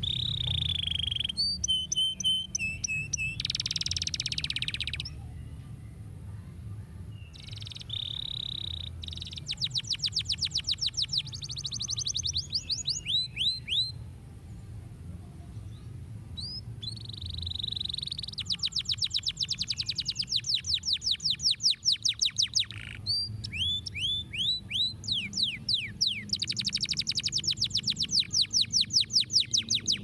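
Domestic canary singing: long fast trills of rapidly repeated high whistled notes, broken by a few held whistles, with two short lulls partway through.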